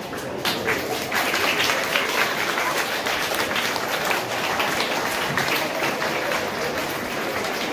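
An audience applauding: a dense patter of many hands clapping that swells about half a second in and carries on, with crowd voices under it.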